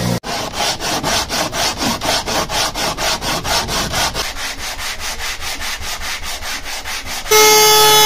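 A block of wood rubbed back and forth by hand over sandpaper laid on a flat board, in even strokes of about four a second, softer after about halfway. Near the end a DeWalt benchtop thickness planer takes over, running with a loud steady whine.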